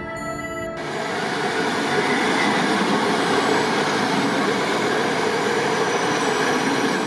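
Passenger train passing close by, a steady loud rush of wheels on rails. It cuts in suddenly about a second in, after fading music, and cuts off abruptly at the end.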